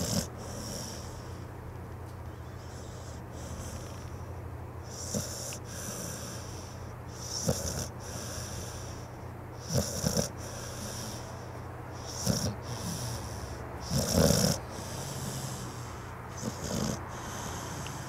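A sleeping pit bull-type dog snoring: a string of snoring breaths about every two to two and a half seconds, each a low rattle with an airy hiss, the loudest about three-quarters of the way through.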